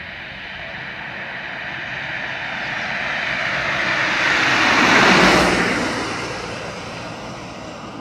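Engine noise of something passing by: a rushing drone that swells to a peak about five seconds in and then fades away.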